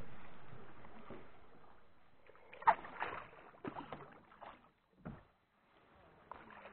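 Kayak paddle working calm water: a handful of irregular dips, splashes and drips, after a steady rushing hiss that fades away over the first two seconds.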